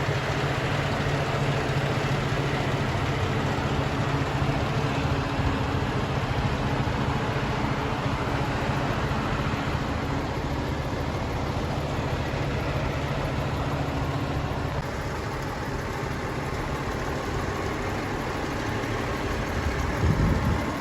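Fire truck's diesel engine idling steadily with a low rumble. The rumble eases slightly about three-quarters of the way through, and a brief louder low surge comes near the end.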